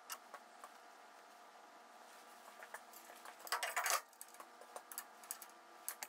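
Light metallic clicks and taps as a band saw's rip fence is fitted onto its aluminium support rail, with one short scraping slide of the fence along the rail a little past halfway.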